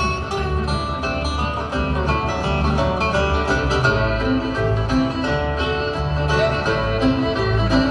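Live acoustic bluegrass band playing an instrumental: banjo, acoustic guitars and fiddle picking over a steady, rhythmic bass line.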